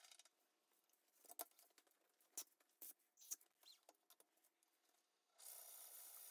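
Wood lathe stopped, with faint scattered clicks and taps from handling the drill chuck and tailstock at the cherry burl blank; about five seconds in the lathe starts again and runs with a steady hum.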